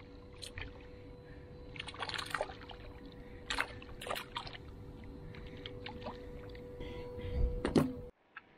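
A hooked fish splashing and thrashing at the water's surface beside a boat as it is reeled in: several separate splashes, the loudest close to the end as it is lifted out of the water, then the sound cuts off abruptly. A steady faint hum runs underneath.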